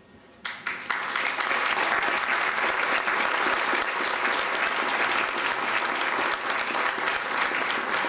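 Audience applauding: a few scattered claps about half a second in, then steady, dense applause.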